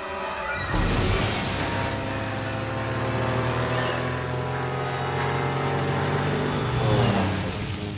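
Twin propeller engines of a light aircraft running: a steady drone that comes in loudly about a second in and swells near the end.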